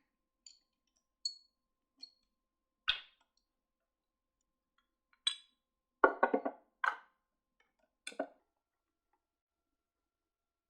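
Light clicks, clinks and knocks of small hard objects being handled and set down on a work surface: a few faint high clinks, then a louder burst of several knocks about six seconds in and two more just after.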